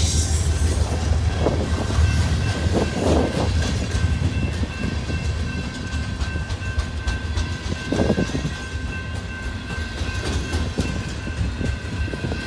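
BNSF diesel freight train running on the rails: a steady low rumble with the clatter of the cars and a thin steady high tone over it.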